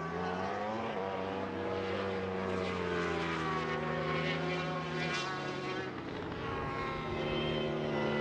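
Superbike racing motorcycle engines at high revs, several bikes running together, their pitch bending and shifting several times as the throttle and gears change.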